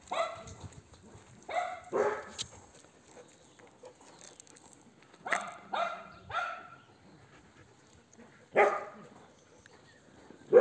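Dog barking: about seven short, sharp barks at uneven intervals, one near the start, a pair, a quick run of three, and one more near the end.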